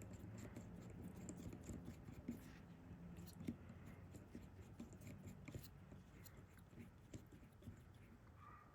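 Near silence with faint scattered small clicks and light rubbing as a screw and a hand-held machine screw cutter are handled.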